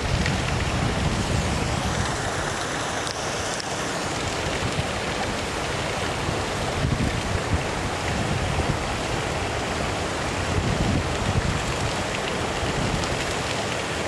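Steady rush of falling water from a waterfall's cascades, with wind buffeting the microphone in irregular low gusts.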